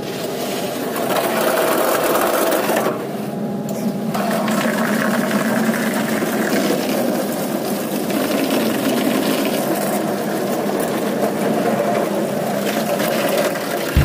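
High-pressure water jets drumming steadily on the cab glass and bodywork of a Komatsu D155A bulldozer, heard from inside the cab; the hiss eases briefly about three seconds in as the jet moves off.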